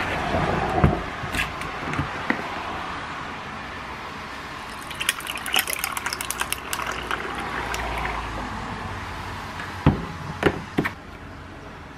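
Iced coffee being poured from a glass bottle over ice cubes in a tall glass: a steady pouring trickle, with the ice crackling and clinking about halfway through. Near the end come a few sharp knocks as the bottle is set down on the wooden table.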